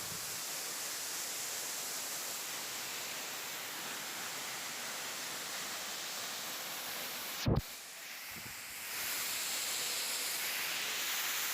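Steady rushing hiss of a waterfall's falling water. A sharp knock comes about seven and a half seconds in; the rush then dips briefly and comes back a little louder.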